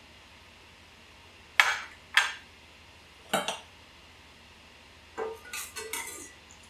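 Three sharp clinks of small dishes and utensils being set down and picked up, then a quick run of ringing clinks as a stainless steel ladle knocks against the inside of a stainless saucepan while stirring soup.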